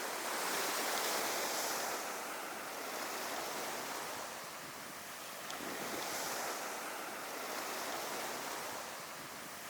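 Calm sea waves breaking and washing on a sandy beach, a steady surf rush that swells and ebbs slowly, with some wind on the microphone.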